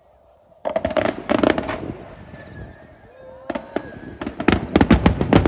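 Fireworks bursting: a sudden cluster of sharp crackling bangs about half a second in, then a dense run of rapid crackling bangs through the second half.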